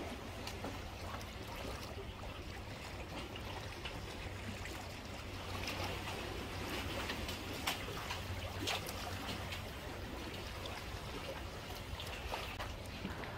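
Calm sea water lapping and trickling against shore rocks, with a low steady rumble underneath and a few small splashes, one near the middle and two more a second apart.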